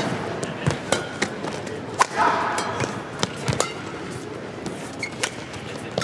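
Badminton rally: sharp cracks of rackets striking the shuttlecock every second or so, mixed with players' footfalls on the court, over the hum of a large indoor hall.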